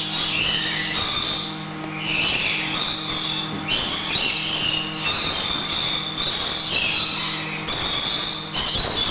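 A flock of lorikeets chattering and screeching without a break, in overlapping high-pitched calls. A steady low hum runs under the calls, fading out about five seconds in and returning near the end.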